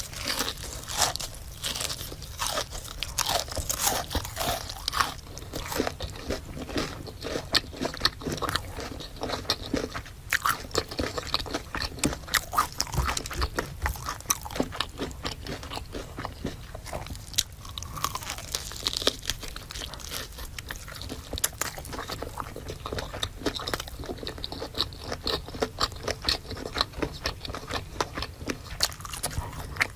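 Close-miked eating: someone biting into and chewing crispy fried food, with a steady stream of sharp crunches and crackles.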